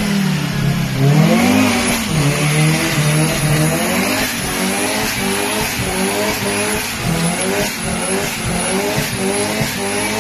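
Mazda RX-7 convertible's rotary engine revving hard, its pitch rising and falling again and again, during a burnout with the rear tyres spinning and smoking.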